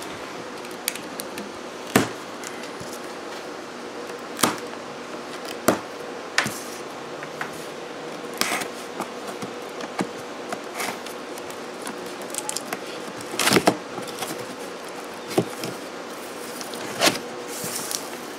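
Utility knife cutting plastic packing straps and slitting a cardboard box, with irregular sharp snaps and clicks and handling of the cardboard, over a faint steady hum.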